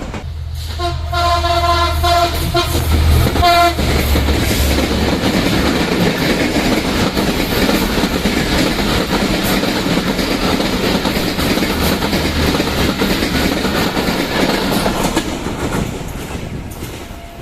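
A diesel-hauled passenger train sounds its horn for about three seconds over the locomotive's deep engine rumble, then rushes past at speed with a steady roar of wheels and carriages that fades near the end.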